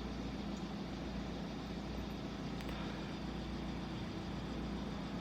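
Steady low mechanical hum, like a motor or engine running at idle, with a faint click or two.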